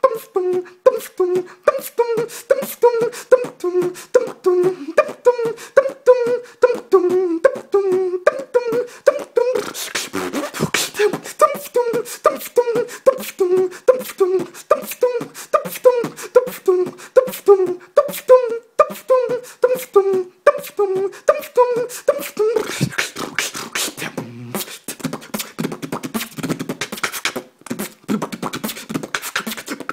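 Human beatboxing: a solo beatboxer's mouth-made drum beat of sharp kicks and snares with a hummed melody line over it. About 22 seconds in the melody drops out and the beat turns into a rougher, noisier section of bass and snare sounds.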